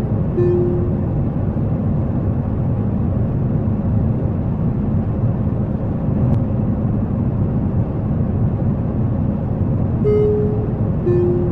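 Steady low drone of a jet airliner cabin in flight. A falling two-note cabin chime sounds near the end, and the low note of another is heard right at the start.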